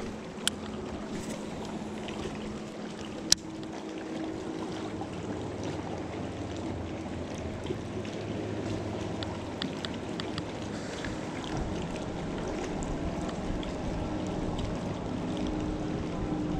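Ambient sound aboard a fishing boat: water lapping and a faint steady hum, while a baitcasting reel is cast and cranked. A sharp click about three seconds in is the loudest sound, with a few fainter ticks later on.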